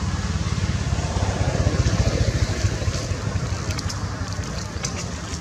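Low, fluctuating rumble of wind buffeting the microphone, with a few faint clicks near the end.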